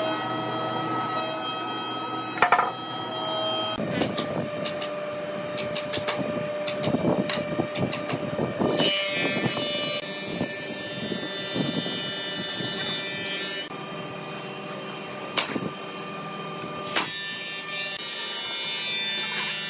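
Woodworking shop noise: a steady hum of running machinery, with a few sharp wooden knocks as the heavy frame pieces of a door are fitted together.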